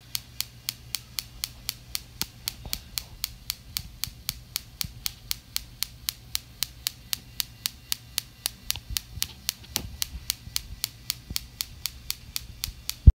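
A SparKit Wimshurst electrostatic generator, its discs spun by a small battery motor, sparks across its brass-ball spark gap. Sharp snapping sparks come at a steady rate of about four a second over a low motor hum, with one louder crack at the very end.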